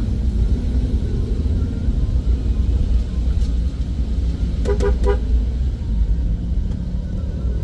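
A car driving with a steady low engine and road rumble. About five seconds in, a horn gives a quick run of short toots.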